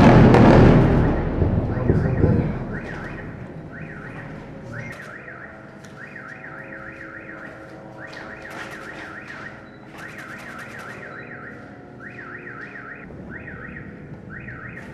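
The blast of an airstrike bomb hitting a house, loudest at the start and rumbling away over about two seconds. Then car alarms set off by the blast warble rapidly in repeated stretches.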